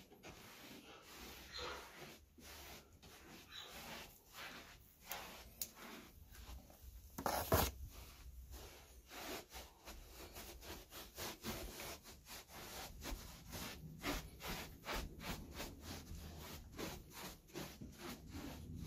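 Faint, irregular rubbing and scuffing noises, a few a second, with one louder knock about seven and a half seconds in.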